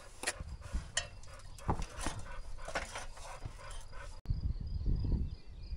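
Sponge rubbed over a freshly applied first coat of wall plaster in short, irregular scraping strokes, which stop abruptly about four seconds in.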